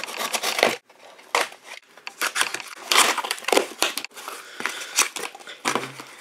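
Cardboard shipping box being opened: a utility knife cutting through it, then the flaps pulled and torn back and paper rustling, in a run of irregular scraping, tearing and crinkling noises.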